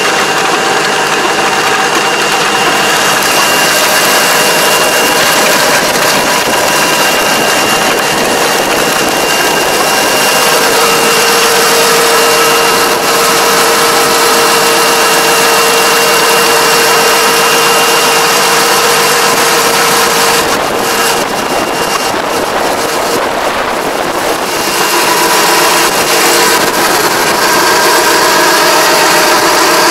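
Tractor-driven Kobashi Gaia XRS751 levee-plastering machine at work, its PTO-driven rotary disc and plastering drum churning wet mud into the paddy levee over the tractor engine's steady running. A steady high whine runs through it, and the level dips slightly for a few seconds past the middle.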